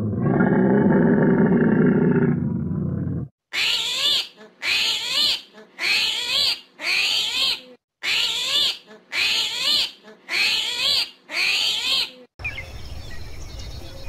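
A dromedary camel gives a long, loud bellow for about three seconds. Then a high call, rising and falling in pitch, repeats eight times about once a second. Near the end a faint outdoor background with small chirps takes over.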